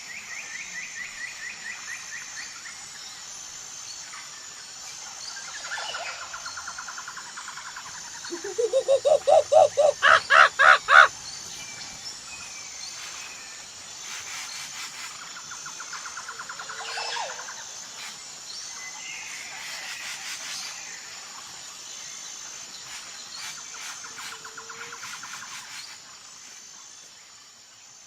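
Animal calls over a steady high insect drone. Several short, fast trills recur through the stretch. About eight seconds in comes the loudest event: a series of about a dozen quick pulsed calls, rising in pitch and growing louder, lasting about three seconds.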